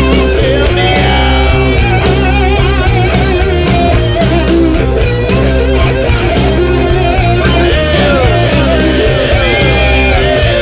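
Rock music with guitar over a steady drum beat, loud and continuous, with wavering and sliding lead notes.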